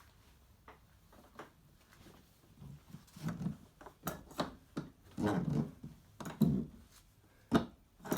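Clunks and knocks of a kart's rear bumper being handled and fitted onto its mounting bolts. Quiet for about the first three seconds, then a run of irregular thuds and sharp clicks, the loudest about six and a half and seven and a half seconds in.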